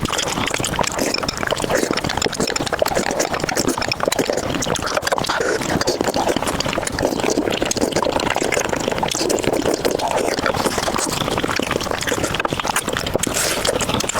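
A person slurping and chewing spicy buldak noodles: continuous wet mouth sounds packed with small crackles and clicks.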